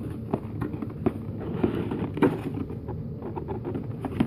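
Hands prying open the tight lid of a DVD box set: scattered clicks and taps with scraping and rustling of fingers on the box.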